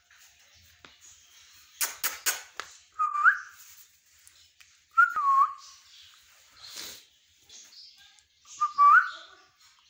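Ringneck parrot giving three short clear whistles, each bending up or down in pitch, after a quick run of sharp clicks about two seconds in.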